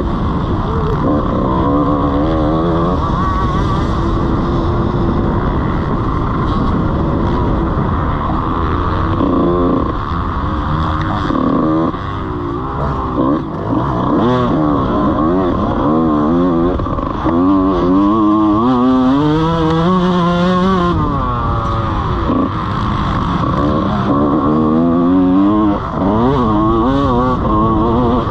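125cc two-stroke motocross bike's engine revving hard, its pitch repeatedly climbing and dropping as the rider accelerates, shifts and backs off around the track, heard from a helmet-mounted camera.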